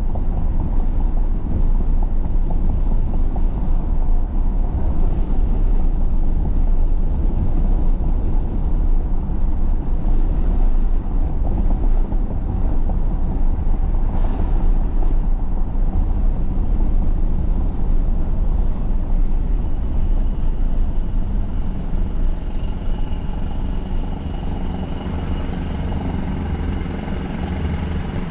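Steady low rumble of vehicle and road noise, with faint high whining tones building up in the last several seconds.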